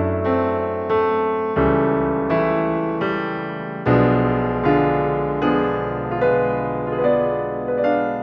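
Background music: a slow piano piece with a note or chord struck about every 0.8 s over held low bass notes that change twice.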